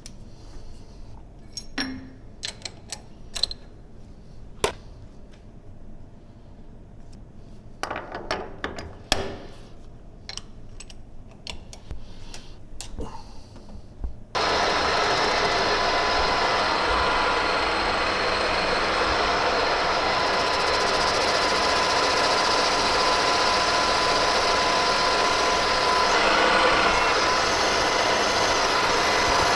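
Clicks and knocks of metal parts being handled, then a metal lathe switches on abruptly about halfway through and runs steadily and loudly, ready to turn down a stainless steel tube.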